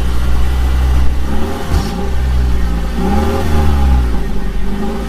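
A vehicle engine revving, its pitch rising and falling in several swells over a deep steady rumble, with a short knock about two seconds in.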